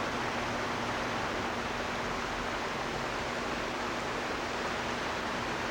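Steady rushing of water at the foot of a dam, an even unbroken noise, with a faint steady hum under it.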